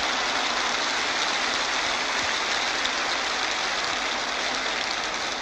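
Recorded football stadium crowd: the steady massed noise of a large crowd, easing slightly near the end.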